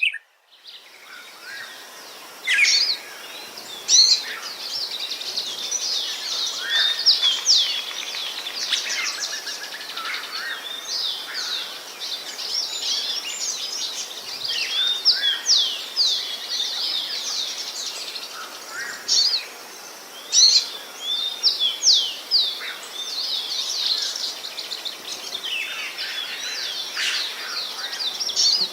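A chorus of small birds chirping and singing, many quick high chirps overlapping over a steady background hiss. It starts sparse and thickens about two and a half seconds in.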